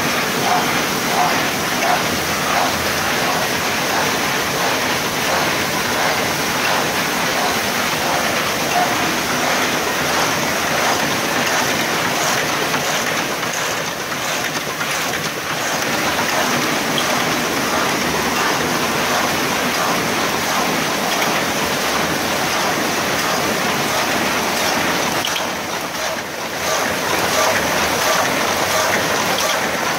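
Bobst SP 102 E die-cutting press running: a dense, steady mechanical clatter with a regular beat about twice a second that comes through most clearly in the first several seconds and again near the end.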